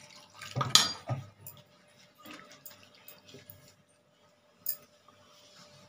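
Water poured from a plastic bottle into a bowl of flour, then a hand mixing it into batter, with a few light clicks. A faint steady hum runs underneath.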